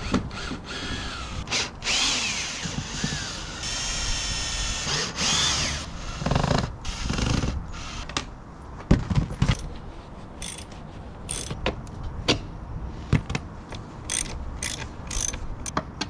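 Cordless drill running in two or three short spells over the first six seconds, its motor whine rising as it spins up and then holding steady. Scattered sharp clicks and knocks follow.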